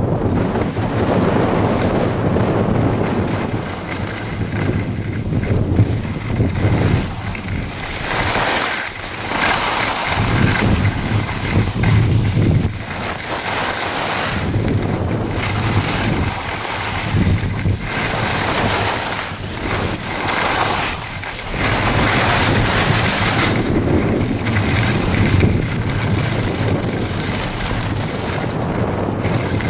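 Wind rushing over the microphone of a moving skier, swelling and dipping in gusts, mixed with the hiss and scrape of skis running over the snow.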